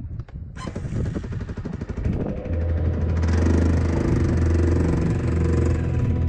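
Quad bike (ATV) engine running, coming in suddenly about half a second in and settling into a steady low note about two seconds later.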